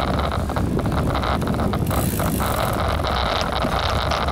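Wind buffeting the microphone of a handlebar-mounted camera on a moving bicycle: a steady low rumbling noise, with a brief higher hiss about halfway through.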